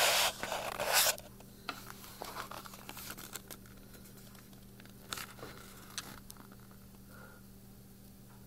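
A silver shipping package being torn open by hand: a loud rip in the first second, then softer crinkling of the wrapping and small clicks as the contents are handled, dying away after about six seconds.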